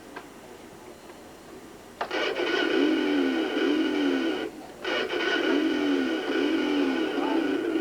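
Electronic sound effect from a toy motorcycle's small speaker: a buzzy, wavering tone that starts about two seconds in, stops briefly, then starts again.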